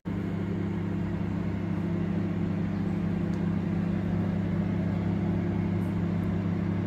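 Electric fan oven running with a steady low hum.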